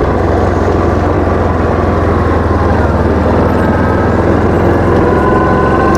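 Side-by-side utility vehicle engine running steadily while driving, with a faint whine that rises slightly near the end.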